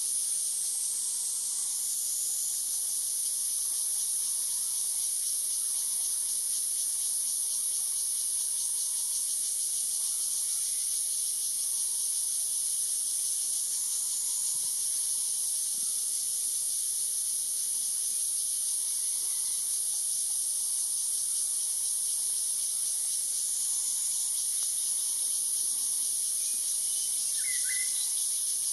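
Steady, high-pitched drone of an insect chorus that runs on without a break. A brief, short bird call sounds near the end.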